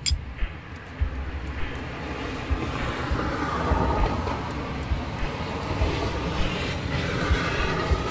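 Steady distant engine rumble that swells about three seconds in and again near the end, with a few low thumps.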